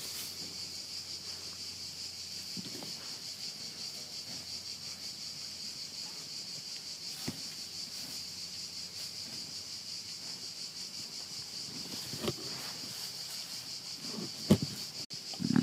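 Steady high chirring of an insect chorus. Near the end a few short knocks break in, one of them sharp and loud.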